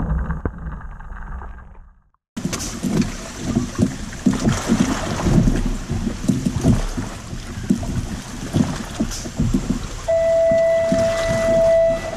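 Sea water slapping and splashing against a fishing kayak's hull, with wind on the microphone, coming in after a brief dead silence about two seconds in. Near the end a steady electronic-sounding tone holds for about two seconds.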